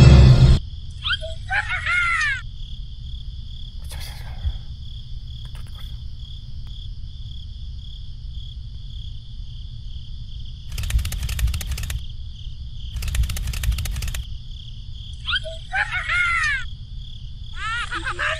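Nature ambience: a steady high chorus of crickets or other insects over a low rumble, with an animal call of quick falling chirps three times. Twice near the middle comes a burst of hiss about a second long. Music cuts off just at the start.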